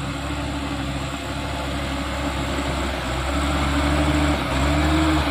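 Diesel engine of a Mitsubishi Fuso Canter HDX 136 PS light truck pulling up a muddy climb, growing louder as it nears, with the engine note rising slightly in the last couple of seconds.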